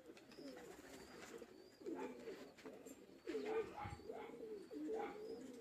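Domestic pigeons cooing, several coos overlapping one another and coming more often and louder from about two seconds in.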